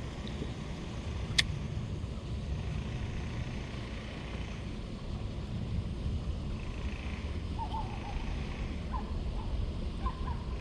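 Steady low wind rumble on the microphone out on open water, with one sharp click about a second and a half in.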